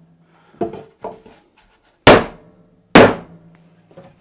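Rubber mallet striking a wooden block laid on a beehive brood box, two loud blows just under a second apart in the second half, each leaving a short low ring from the box. A few lighter knocks come before them. The blows seat the freshly glued corner joints of the box as a final step of its assembly.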